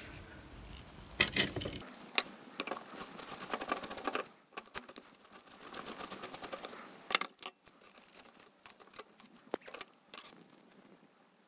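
Quick light clicks and ticks of a screwdriver unscrewing the mains terminal block and of small parts knocking on the plastic base of an old Weller soldering station, busiest in the first half and thinning out later.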